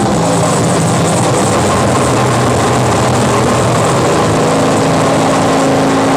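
Harsh noise music from a live rig of effects pedals and electronics: a loud, dense, unbroken wall of distorted noise over a low droning hum, with a further low steady tone coming in about four seconds in.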